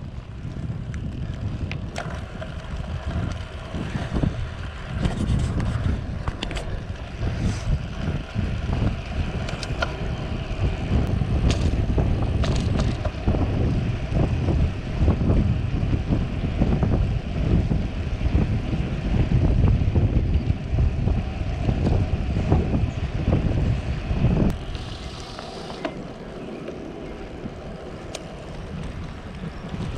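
Wind buffeting the microphone of a bicycle rider's camera at riding speed: a gusty low rumble that eases for a few seconds near the end.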